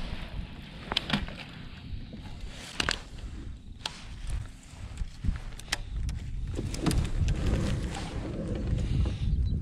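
Handling sounds from a fishing kayak: a few sharp clicks and knocks from the rod, reel and hull over a low rumble of wind and water that grows louder about two-thirds of the way in.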